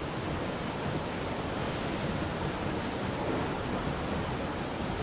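Steady rushing noise of sea and wind aboard an IMOCA 60 racing yacht under way, with no distinct events.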